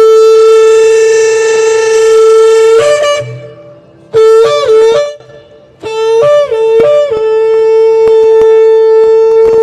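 Shofar blown in loud blasts: a long steady note, then after a short break a brief blast that cracks upward in pitch, then a few short rising notes that settle into a second long held note near the end.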